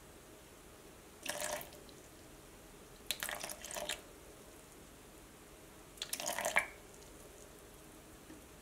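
Water poured from a plastic bottle into a glass jar of flour and sourdough starter, splashing in three short spurts.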